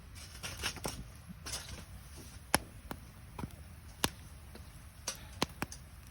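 Campfire of damp gathered firewood crackling over a low steady rumble of flame, with hissy crackles in the first couple of seconds and then several sharp pops, the loudest about two and a half, four and five and a half seconds in. The pops are the wood snapping as its moisture boils off.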